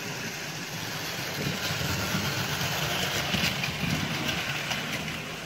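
OO gauge model train running along the track, its electric motor and wheels making a steady mechanical running sound that grows louder as it passes close by, about three to four seconds in.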